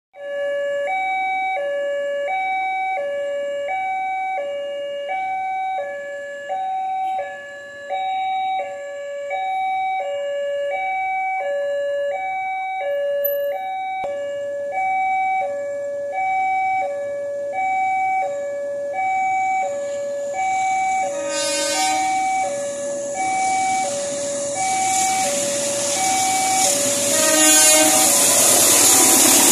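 Railway level-crossing warning alarm sounding a steady electronic two-tone chime, alternating low and high about once a second. In the last third a diesel locomotive gives two short horn blasts, and the noise of the approaching train rises until it is the loudest sound near the end.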